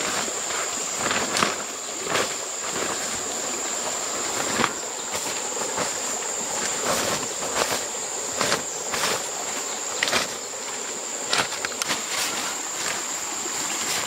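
Insects droning with one steady high-pitched tone, with scattered sharp clicks and knocks over it every second or so.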